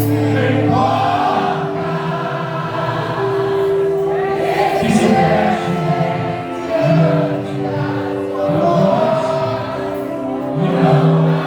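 Live gospel worship music: voices singing together over a band's sustained chords.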